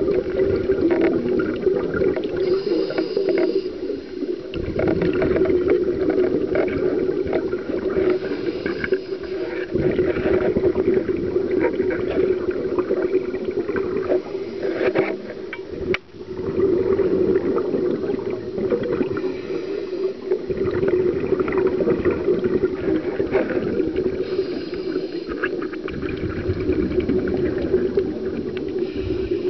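Scuba diver breathing through a regulator, heard through a sealed underwater camera housing: a cycle about every five to six seconds of a brief hiss and a long bubbling rumble of exhaled air, over a steady low hum.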